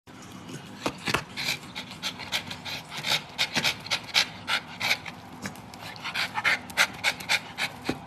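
A dog panting, with an irregular run of short clicking mouth sounds, several a second.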